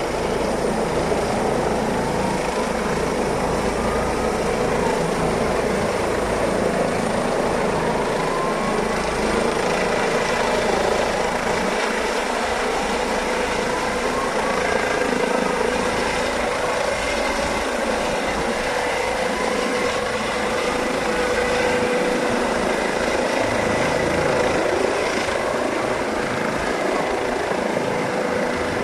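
Rescue helicopter hovering low overhead: a steady turbine whine over the continuous beat and rush of the rotor.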